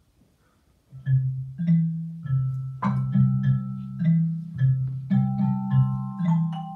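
Mallet percussion played live: a slow melody of struck, ringing notes, about two a second, with low notes sustaining under higher ones. It begins about a second in, after a moment of near silence.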